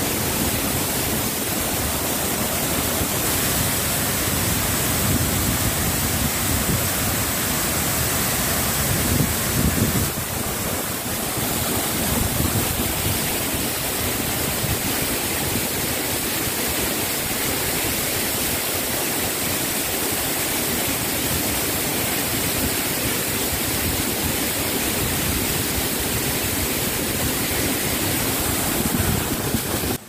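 Waterfall pouring down a steep rock face: a steady, loud rush of falling water.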